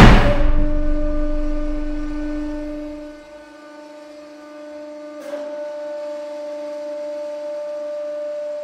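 A hardened tool-steel rod under a 150-ton hydraulic press gives a sharp crack as it is crushed and slips out. The press's hydraulic pump runs on with a steady whine; its low rumble dies away after about three seconds, and there is a second, smaller click about five seconds in.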